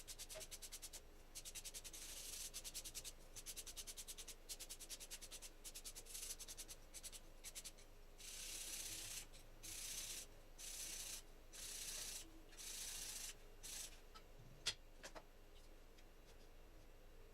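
Hand sanding or rubbing with an abrasive on an alternator part: first a fast run of short scraping strokes, then about six longer strokes of roughly a second each, followed by a single sharp click.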